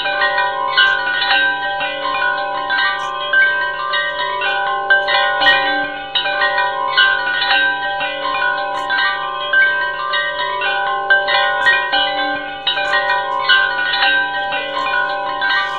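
Background music of bell-like chime tones, with overlapping ringing notes struck several times a second and left to ring.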